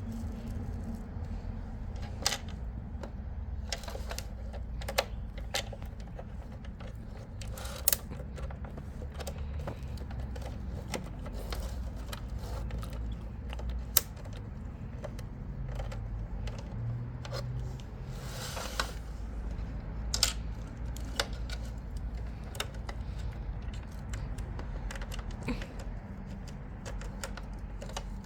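Scattered sharp clicks and taps of hand work fastening a plastic motorcycle seat cowl with screws, irregular and a few seconds apart, over a low steady rumble.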